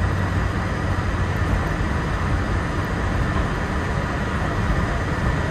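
Walt Disney World Mark VI monorail heard from inside the car while running along its beam: a steady, even rumble with a thin steady whine above it.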